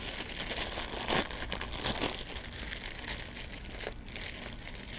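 Packaging crinkling and rustling as it is handled, with scattered small clicks and crackles throughout, as the new water pump and its gasket are taken out of their wrapping.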